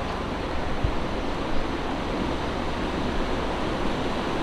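Fast water rushing steadily out of a side channel into the canal, running with force after a week of heavy rain.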